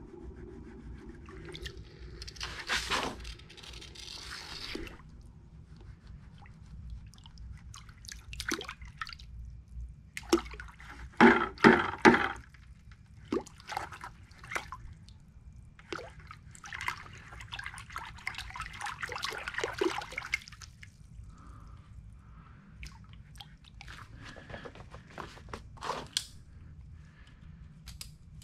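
Hot plaster investment flask from a silver casting held in tongs and swished through a bucket of water to quench it and break the investment away, giving irregular bursts of splashing and sloshing with sharp clicks of the tongs. The loudest splashing comes about eleven seconds in.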